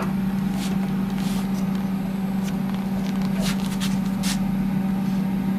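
Steady low hum, held at one even pitch, with a few faint clicks.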